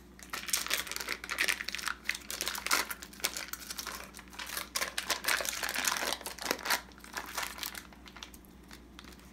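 Foil wrapper of a block of cream cheese being crinkled and peeled open by hand, a dense run of crackling that thins out near the end.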